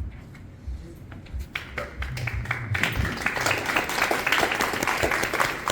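Audience applauding, starting with scattered claps and swelling into full applause about three seconds in.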